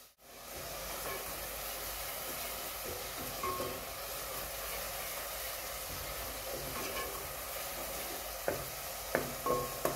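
Chopped onions and ginger-garlic paste sizzling steadily in oil in an aluminium pot as they are fried (bhuna) to cook off the raw smell. A wooden spoon stirs them, with a few short scrapes against the pot near the end.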